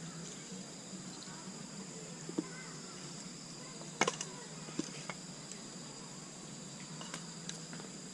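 Steady high-pitched insect song, like crickets, with a few sharp clicks scattered through it, the loudest about four seconds in.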